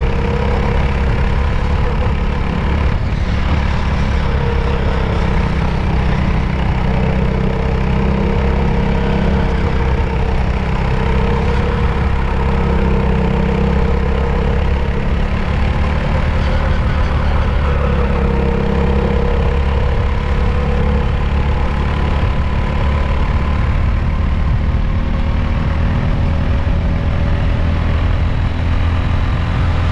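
Racing kart's engine heard onboard at race speed, running loudly and steadily, its pitch rising and falling as it accelerates and slows around the track.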